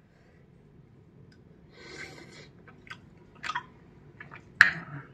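A person chewing a mouthful of soya chunks curry, with scattered short clicks and smacks; the sharpest click comes about four and a half seconds in.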